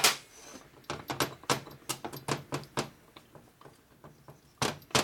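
Light metallic clicks and clinks of a gear being worked off its shaft on a Harley shovelhead four-speed transmission: a run of quick, fairly regular ticks, then two louder clacks near the end, over a faint steady low hum.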